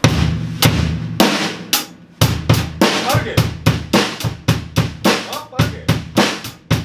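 Acoustic drum kit played with sticks: a few loud opening hits that ring on for the first two seconds, then a steady beat of about four strokes a second on bass drum and snare.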